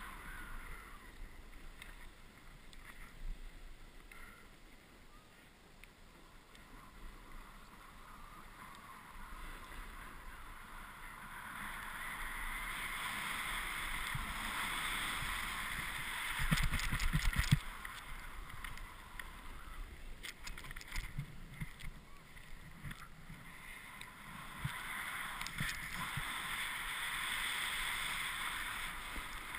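A snowboard sliding and carving on packed snow: a hissing scrape that rises and falls as the board picks up speed and turns. About sixteen to seventeen seconds in there is a short run of knocks and thumps, with a few lighter clicks after it.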